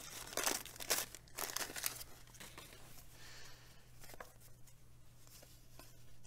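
Wax-paper wrapper of a 1989 Bowman baseball card pack being torn open, in several short crinkling rips over the first two seconds. Fainter rustling follows as the cards are slid out of the pack.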